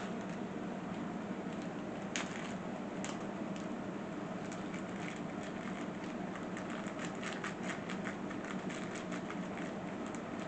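Small bed-frame assembly hardware (screws, bolts and washers) being handled and sorted, giving a few single clicks and then a quick run of light clicks and clinks, over a steady low background hum.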